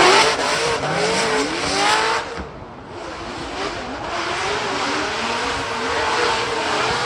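Drift car engines revving hard, pitch climbing steeply. A little past two seconds in they suddenly drop away, as on a lift-off, then pull back up to a steady high-rpm note.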